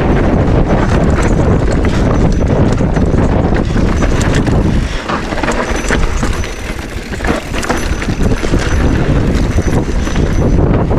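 Wind buffeting a GoPro's microphone, which has its wind filter off, over the clatter of a mountain bike riding rough ground: a dense run of small knocks and rattles. Both ease for a couple of seconds around the middle.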